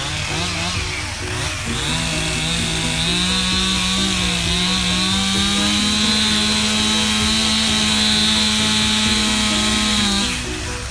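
Stihl chainsaw running at high revs while cutting, its pitch climbing in steps and then holding high before it stops shortly before the end. Background music plays underneath.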